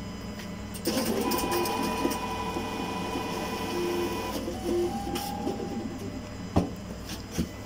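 Cash deposit ATM's internal mechanism running as it processes a deposit and issues the slip: a mechanical whir with a steady whine starts about a second in, gives way to a shorter, lower whine a little after the middle, and ends with a few sharp clicks.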